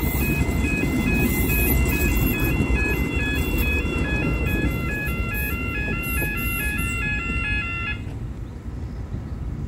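Level crossing warning alarm sounding a rapid, repeating alternating-tone pattern while a Tyne and Wear Metrocar train rumbles across the crossing. The alarm cuts off about eight seconds in as the train clears, and the rumble fades.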